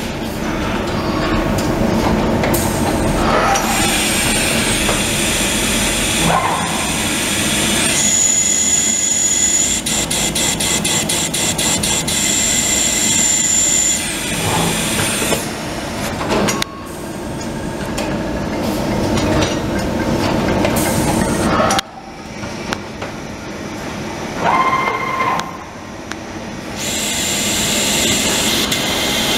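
Trumpf CNC punch press running: a continuous mechanical clatter and hiss of air with high whines as the sheet is driven under the head. About a third of the way in comes a quick run of punch strokes, several a second. The noise drops off abruptly about three quarters through before picking up again.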